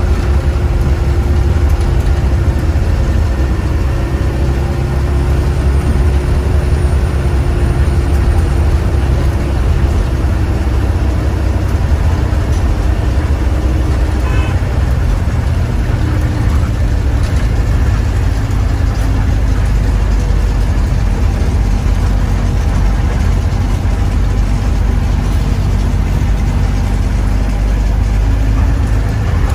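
KSRTC Sarige diesel bus under way, its engine and road noise a steady low rumble.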